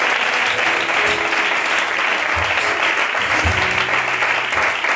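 Congregation applauding steadily, with instrumental music playing underneath.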